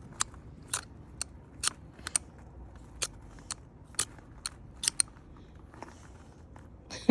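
Magnesium fire starter rod being struck with its scraper again and again: short, sharp scrapes about twice a second, growing sparse after about five seconds.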